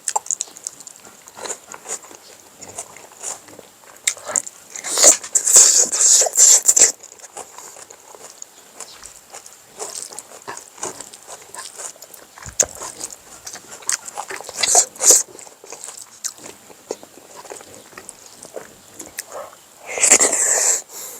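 A person eating with the mouth close to the microphone: wet chewing, smacking and crunching of smoked pork and rice in irregular bites, louder for a few seconds about five seconds in, again around fifteen seconds and near the end.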